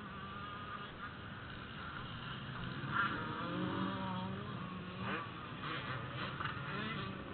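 Motocross dirt bikes revving on the track, their engine pitch rising and falling through the gears, over a steady low engine hum.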